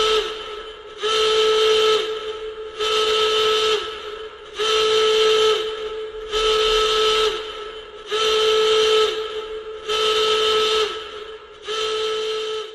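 Emergency alert alarm: a horn-like pitched blast repeated about every 1.8 seconds, eight times. Each blast lasts about a second and dips slightly in pitch as it ends, leaving a ringing tail.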